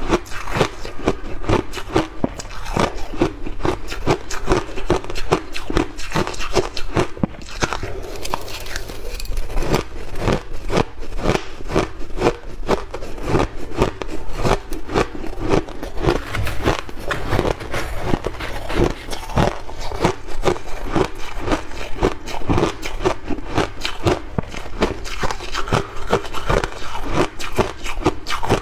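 Close-up crunching of shaved ice being bitten and chewed by the mouthful: a dense, continuous run of small crackling crunches.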